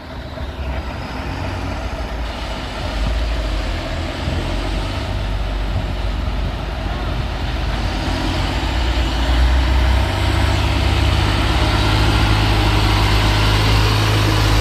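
The diesel engine of a UD Trucks tractor-trailer running as it approaches. It grows louder over about the first ten seconds, then stays loud and steady with a deep low drone.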